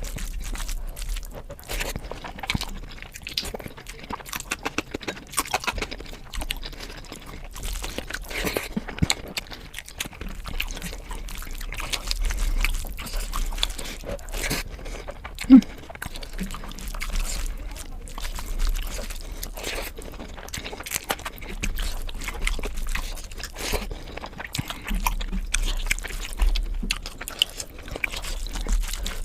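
Close-miked eating: steady chewing and crunching with many small, irregular mouth clicks and smacks. One sharper, louder sound comes about halfway through.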